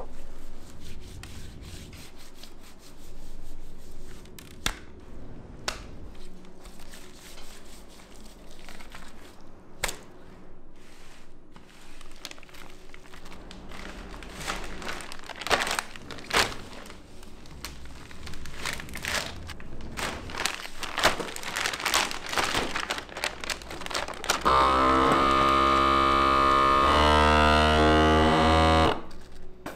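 Hands-on kitchen prep: scattered taps, knocks and plastic crinkling. Near the end a loud motor runs steadily for about four seconds, shifting pitch partway through, then cuts off suddenly.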